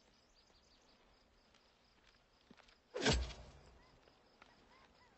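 A pitchfork working a pile of hay: one loud, sudden thump with a rustle about three seconds in, over quiet outdoor ambience with faint small chirps.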